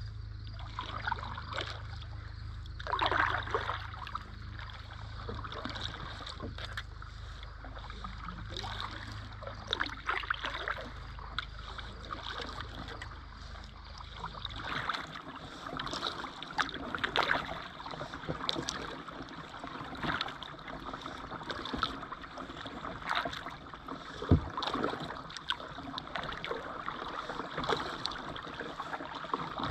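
Kayak and canoe paddles dipping into river water, with irregular splashes and drips from the strokes. A low steady rumble sits under the first half and stops about halfway, and a single sharp knock stands out about 24 seconds in.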